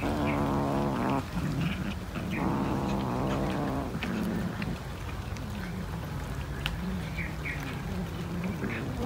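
Cat growling low over food: two long growls in the first four seconds, then a quieter, wavering growl that carries on. Small clicks of cats eating sound throughout.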